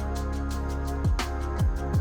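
Background music: a steady electronic beat with deep kick drums and light hi-hat ticks under held synth tones.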